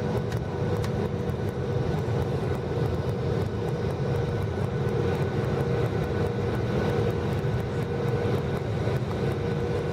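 Cabin noise inside a Boeing 737-800 on descent: a steady rush of airflow and the CFM56 jet engines, with a constant hum held at one pitch.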